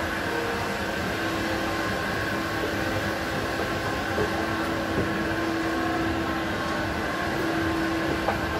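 Escalator running: a steady mechanical hum with one constant low tone.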